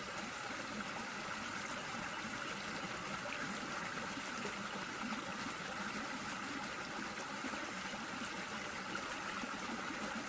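Steady, even outdoor rushing noise that holds unchanged throughout.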